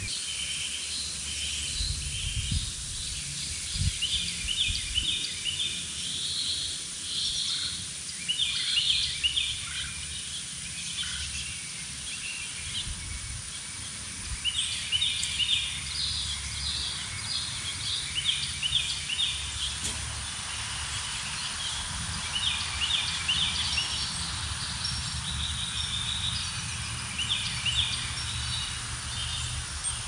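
Several birds singing, with short chirping phrases repeated again and again, over a steady low rumble.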